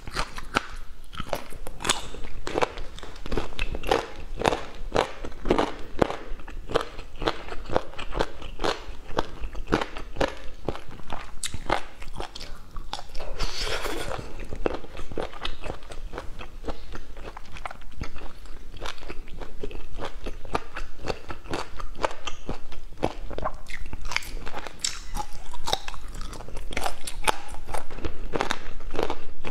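Close-miked chewing and biting of spicy braised meat pieces, a dense run of crisp, irregular crunches and wet mouth clicks. About halfway through comes a longer, wetter smacking sound as a finger is licked clean of sauce.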